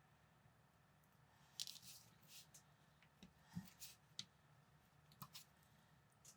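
Faint clicks and short rustles of small plastic building bricks being handled and fitted together, scattered through the middle few seconds with one last click near the end.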